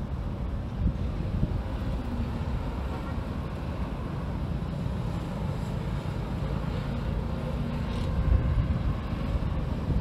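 Wind rumbling on the microphone over a steady hum of street traffic, with gusts swelling about a second in and again near the end.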